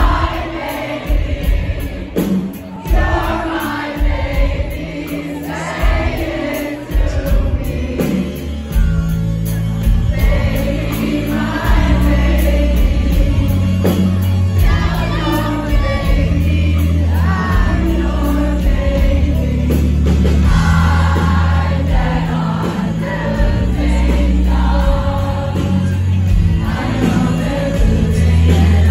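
Live band performance of a slow indie-rock ballad: a woman sings into a microphone over keyboard, guitar, bass and drums. The sound is sparse at first, then grows fuller and louder with a heavy low end about nine seconds in.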